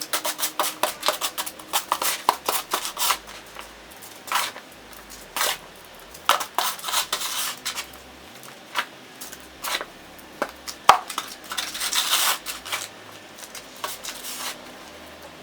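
A hand tool scraping and chipping at ice and packed snow: irregular sharp strikes mixed with short scraping strokes, about a dozen clear hits.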